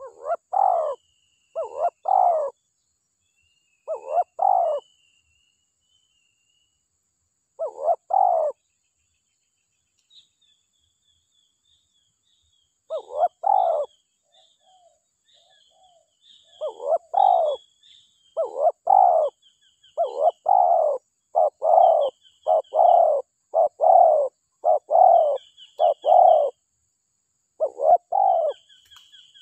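Spotted dove cooing in short repeated phrases. They come in spaced pairs at first, then a quicker, steady run in the second half. Faint high chirping of another small bird runs behind.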